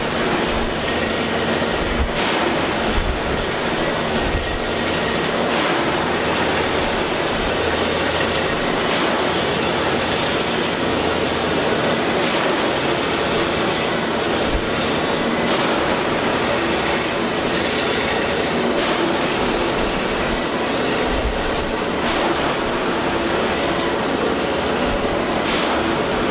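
Rail track maintenance machinery working on the line: a steady loud mechanical noise with a sharp knock every few seconds.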